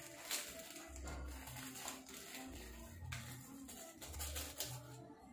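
Background music with a slow, repeating bass beat, with a few soft crinkles and rattles from dry bait pellets and a plastic packet being handled.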